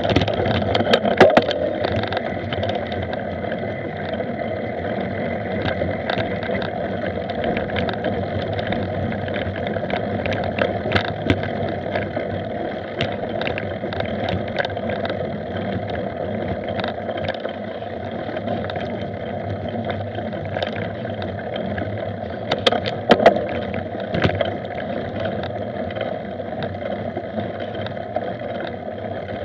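Mountain bike rolling fast over a dirt forest trail, heard from a camera on the moving rider: steady ride noise with frequent small rattles and knocks as it runs over bumps, and a short burst of louder knocks about 23 seconds in.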